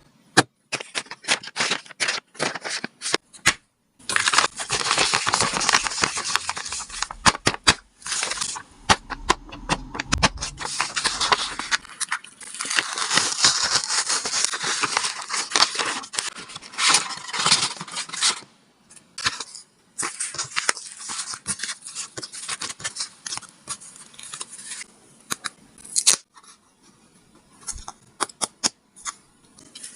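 Paper crinkling and rustling as it is handled, with many sharp crackles and clicks and longer stretches of dense rustling.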